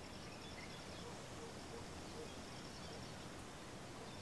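Faint countryside ambience: a high, pulsing insect trill near the start and again near the end, scattered faint bird chirps, and a low steady hum underneath.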